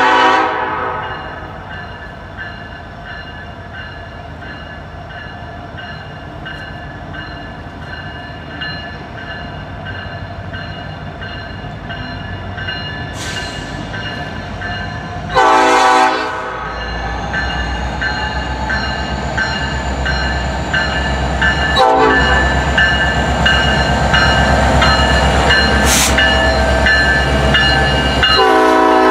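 Norfolk Southern diesel freight locomotive approaching and sounding its multi-chime air horn in three blasts: one at the start, one about halfway, and one near the end. The engine and wheel rumble grows steadily louder as the train nears and passes.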